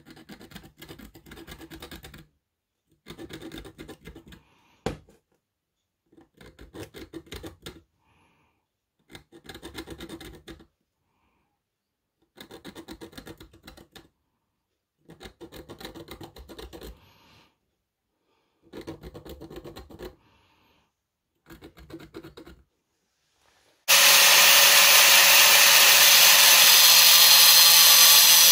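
Hardened scriber point scratching back and forth across a steel bar in about eight short strokes of a couple of seconds each, separated by pauses, with one sharp click about five seconds in. Near the end an angle grinder starts and cuts into the steel bar, much louder and steady.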